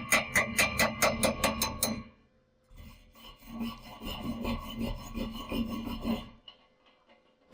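Percussive background music with a steady beat for about two seconds, then it stops and a hand wire brush scrubs the welded steel in quick rhythmic rasping strokes, about three a second, for a few seconds.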